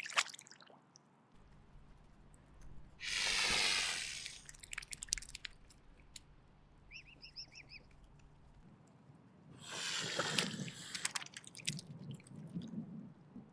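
Mute swan hissing: two long, breathy hisses, about three seconds in and about ten seconds in, with wet clicks and a few short high chirps between them.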